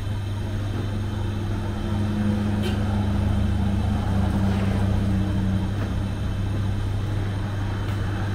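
Road traffic: a vehicle passes on the road, swelling in the middle and fading near the end, over a steady low hum.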